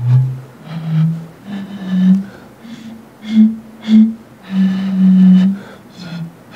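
Bottle pipe: plastic PET bottles, each tuned by the height of water inside, blown across the mouth one after another to play a simple tune. About nine breathy, hooting notes step up and down in pitch, with one longer held note about five seconds in.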